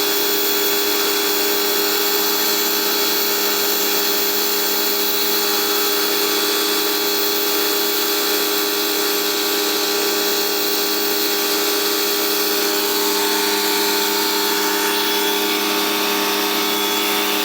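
Homdox 2950 PSI electric pressure washer running steadily, its motor and pump humming under the hiss of the water jet spraying concrete patio blocks. The tone shifts slightly about three-quarters of the way through.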